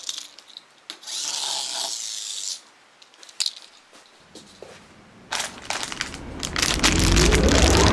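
Crinkling and rustling of a foil blind-bag wrapper handled by hand, in short hissy stretches and then a run of sharp crackles. Near the end a rising sweep swells into electronic music.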